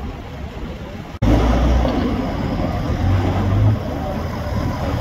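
A truck engine running steadily with a low drone, over street traffic noise; the sound jumps louder about a second in.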